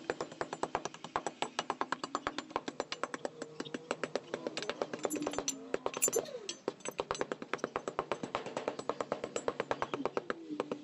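Background music with a fast, even clicking beat.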